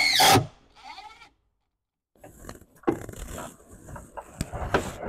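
A power drill driving a self-tapping screw into the cart frame stops a moment in, its whine dropping away. After a short silence come scattered knocks and clatter of handling.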